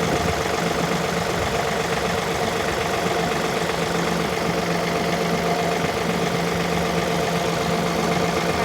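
Tractor engine running steadily at an even speed, with no change in pitch or loudness.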